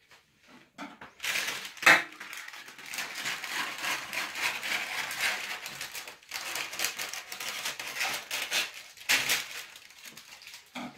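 Parchment baking paper rustling and crinkling as it is handled on a baking tray, with a sharp click about two seconds in.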